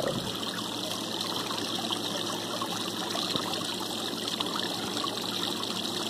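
Water pumped by a 500 GPH bilge pump pouring steadily over a small stone waterfall and splashing into a garden pond.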